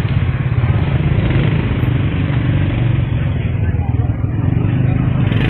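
An engine running steadily nearby, a low even rumble, with faint voices behind it.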